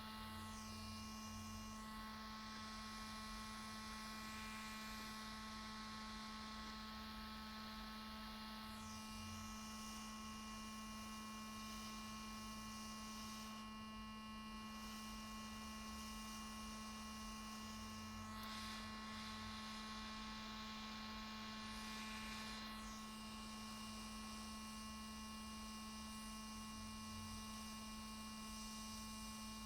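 Faint steady electrical hum with a low hiss, unchanging throughout, with no knocks or clicks.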